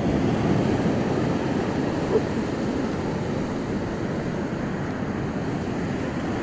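Steady rush of surf and wind buffeting the microphone, with one brief sharp sound about two seconds in.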